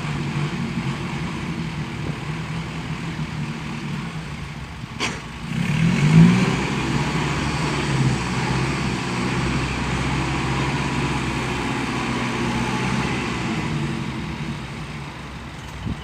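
Heavy diesel engine running steadily, with a sharp knock about five seconds in and a brief rev about six seconds in.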